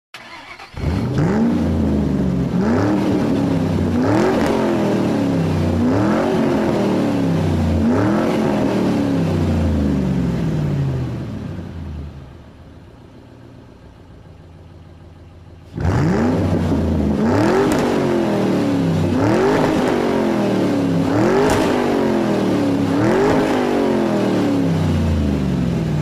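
An engine being revved over and over, each rev climbing quickly and then dying away, about one every two seconds. About halfway through it falls back to a quiet idle for a few seconds, then the revving starts again suddenly.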